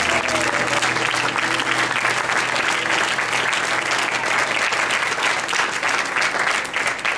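Audience applauding steadily, with the backing music trailing off over the first couple of seconds.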